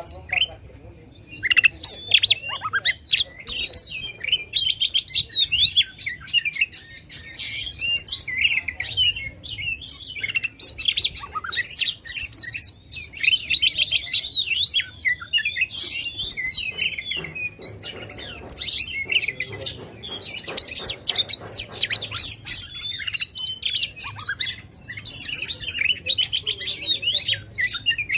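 Oriental magpie-robin (kacer) singing a loud, rapid, varied song of whistles, trills and chattering phrases, barely pausing. This is the full, aggressive 'ngobra' song used to provoke rival males.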